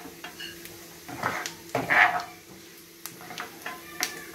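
Coconut pieces sizzling in hot ghee in a nonstick pan while a coconut-shell ladle scrapes and knocks against the pan, scooping them out as they turn golden. There are a few separate scrapes, the loudest about two seconds in.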